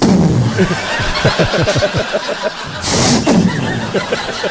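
Laughter: a comedy-club audience laughing, with a man chuckling in short rapid pulses about a second in. Two short hissy bursts, one at the start and one about three seconds in, cut through it.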